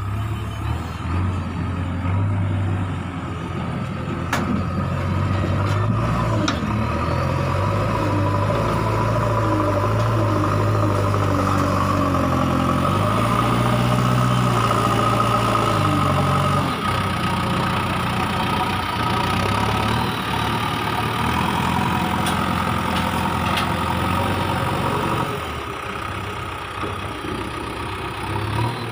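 JCB 3DX backhoe loader's four-cylinder diesel engine working under load as the front bucket digs into a soil heap and lifts it, its pitch stepping up and down with the work. The engine drops back toward idle near the end.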